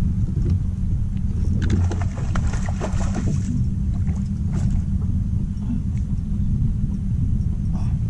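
Steady low rumble of wind buffeting the microphone, with a burst of rapid crackling clicks lasting about two seconds, starting a second and a half in.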